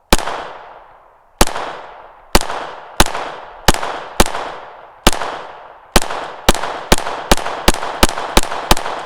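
Taurus TX22 .22 LR pistol firing about sixteen shots, spaced about a second apart at first and then quickening to two or three a second in the second half. Each sharp crack trails off in a long echo.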